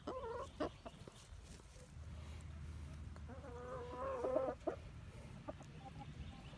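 Backyard hens clucking quietly as they feed, with a longer run of wavering clucks about three to four seconds in and a few short calls at the start. A few light taps, fitting beaks pecking at food, come in between.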